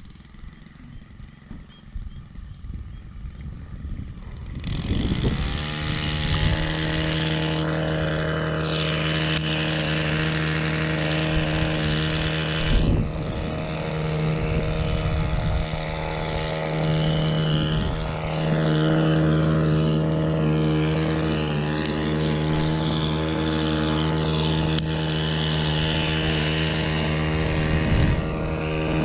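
An engine drones at a steady, nearly constant pitch, coming in about five seconds in and continuing.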